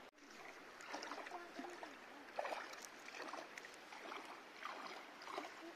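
Shallow river water splashing and sloshing around a child's feet as he wades over stones, with scattered small splashes over a faint steady wash of the stream.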